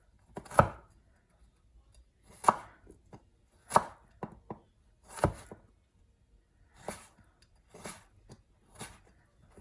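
A knife slicing a carrot into thin julienne strips: about nine separate sharp cuts, unevenly spaced at roughly one a second.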